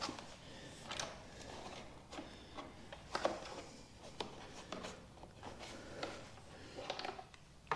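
Faint scattered rustling, scraping and light clicks of a wire being worked in behind a motorcycle's plastic fairing panels, with hands brushing and pressing the plastic.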